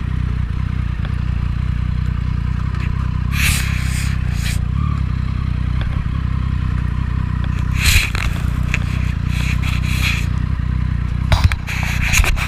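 Triumph 675 three-cylinder motorcycle engine running at steady revs while riding, with wind buffeting the microphone in gusts about three and a half seconds in, around eight seconds, and again near the end.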